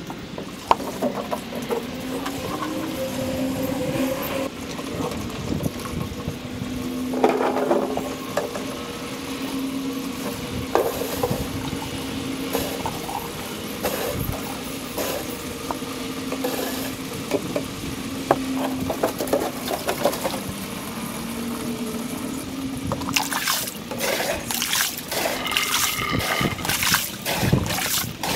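Water running and splashing from a garden hose at an above-ground pool being emptied, sped up four times, over a wavering steady hum. The splashing turns louder and choppier about five seconds before the end.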